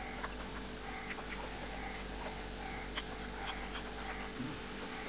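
Insects chirring in a steady, unbroken high-pitched drone, with faint scattered clicks from eating at the table.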